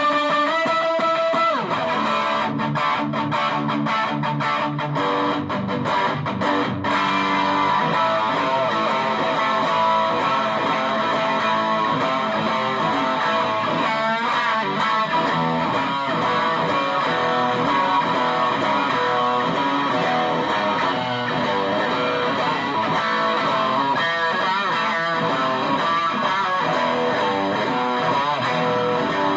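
Electric guitar played through a TC Electronic Dark Matter distortion pedal: a few held notes, then continuous strummed chords and riffs with a dense, distorted tone.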